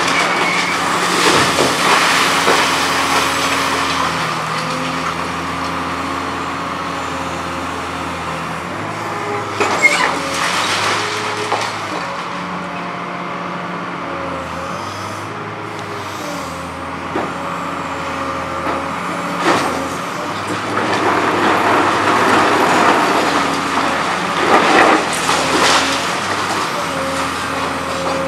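Liebherr R954B high-reach demolition excavator working: its diesel engine and hydraulics run steadily, their hum stepping up and down in pitch as the boom and concrete shear are worked. Concrete crunches and debris crashes down several times, heaviest in the last third.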